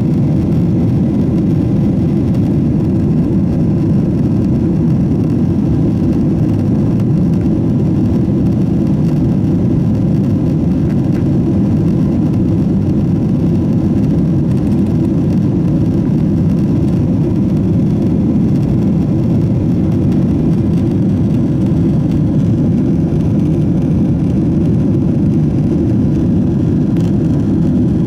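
Steady cabin noise inside a Boeing 767-400 during the climb after takeoff: an even, low rush of jet engines and airflow, with a faint steady whine above it.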